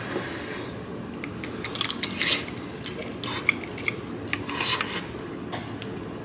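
Metal spoon cracking through the broiled, caramelized turbinado sugar crust of a crème brûlée and scraping and clinking against the ceramic ramekin: several short scrapes and clicks.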